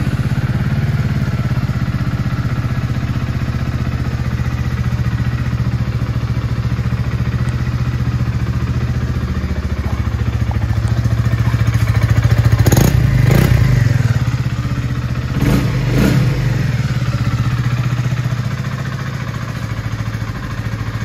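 Honda CB125R's 125 cc single-cylinder four-stroke engine idling steadily just after starting, with two short throttle blips about halfway through.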